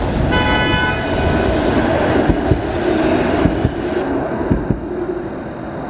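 Bombardier Flexity Outlook streetcars running on street track: steady rumble of wheels and running gear, with several sharp knocks in the middle and a brief high ringing tone about half a second in.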